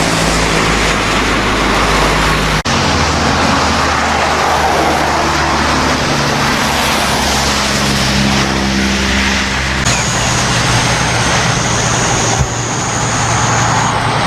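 Engines running steadily under a heavy wash of noise, with the engine pitch changing abruptly twice; a faint high whine joins about two-thirds of the way through.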